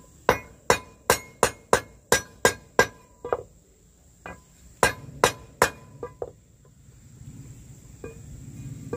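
A wooden mallet striking the blades of a three-blade metal boat propeller held against a wooden block. Each blow rings clearly, in a quick run of about eight at roughly three a second, then a few more after a short pause. The blows are reshaping the blades to set the propeller's pitch; a low rumble rises near the end.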